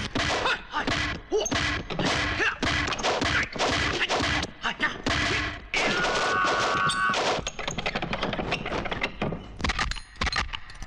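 Kung fu film fight sound effects: a rapid, unbroken flurry of wooden pole strikes and clacks against a mechanical wooden wolf dummy, several hits a second. A short ringing tone sounds about six seconds in.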